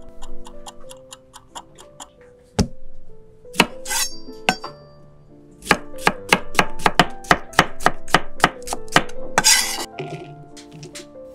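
Chef's knife slicing cucumbers on a wooden end-grain cutting board: rapid, even chops, one run at the start and a longer, quicker run of about six strokes a second past the middle.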